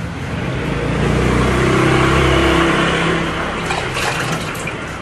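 A passing motor vehicle's engine, swelling up about a second in and fading away after three seconds, over water running from a hose into a sink. Near the end, water splashes as a wet dog is rinsed.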